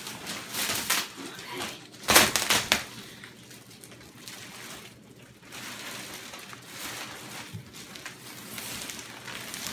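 Thin plastic sheeting crinkling and rustling as it is pulled and bunched off a rolled, vacuum-packed mattress, with a louder burst of crackling about two seconds in.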